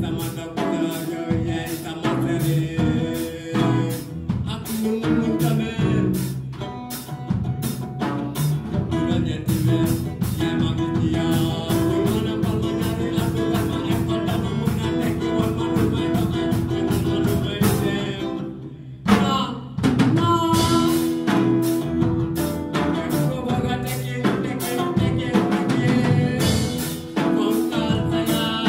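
Live band with a singer, drum kit and electric guitar. About two-thirds of the way in, the band drops out for a moment and comes back in on a loud hit.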